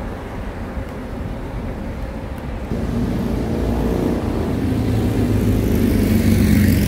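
Road traffic on a city street, with a motor vehicle's engine growing louder from about three seconds in and peaking near the end as it comes close.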